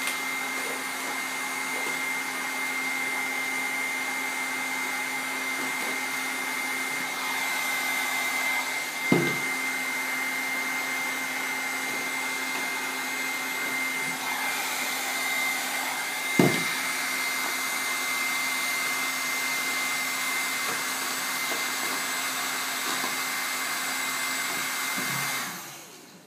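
Hot-air heat gun blowing steadily with a high whine, heating vinyl wrap film as it is stretched; it switches off near the end. Two short knocks about nine and sixteen seconds in.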